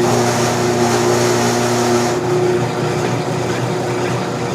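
Brake lathe running, turning down a C6 automatic transmission clutch backing plate: a steady motor hum with a hiss over it that drops away about two seconds in.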